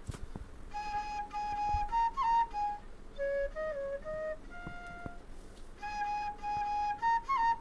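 Background music: a solo flute playing a slow melody of long held notes with short turns between them.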